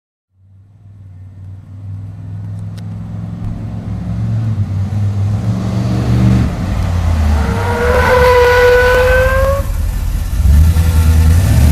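Lifted Dodge pickup truck's engine running and revving, fading in and growing steadily louder, with a high squeal rising slightly in pitch for about two seconds past the middle.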